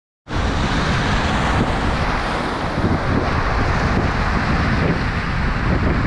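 Ocean surf breaking and washing over a rocky shoreline, a steady rush of foaming water, with a heavy rumble of wind on the microphone underneath. It starts abruptly just after the beginning.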